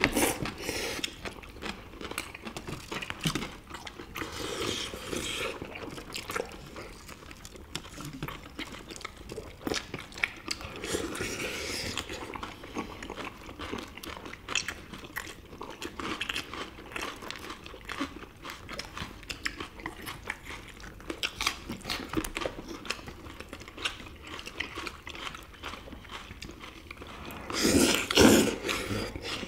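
Close-up eating sounds of several people: chewing and crunching, with small clicks of chopsticks and bowls throughout. Near the end comes a louder stretch of slurping noodles.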